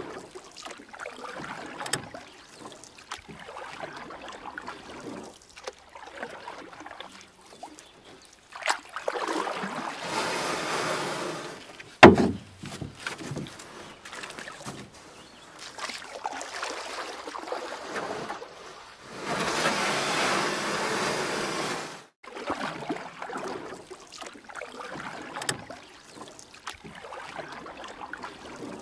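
Kayak paddle strokes splashing and water lapping against a plastic kayak hull, with two longer, louder rushes of splashing lasting a few seconds each. A single sharp knock about twelve seconds in.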